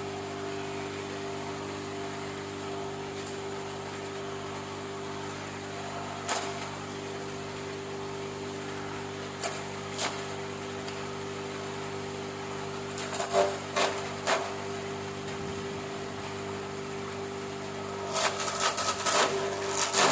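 Electric motor of a 350-watt four-blade grass chopping machine running steadily at full speed with an even hum. A few short knocks come through it, and a run of rattling clatter starts near the end.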